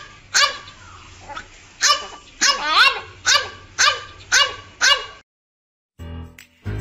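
A black bulldog-type dog giving a run of short, high yelps, each falling in pitch, about one every half second, stopping about five seconds in. Music starts near the end.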